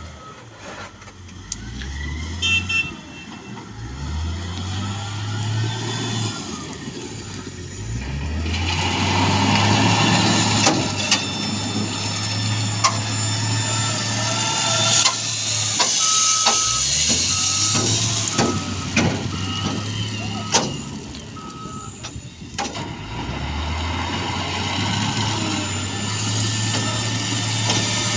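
Wheel loader's diesel engine revving up and settling again several times as it works a heap of gravel. A reversing alarm beeps evenly for several seconds past the middle, with scattered sharp knocks of stone and bucket throughout.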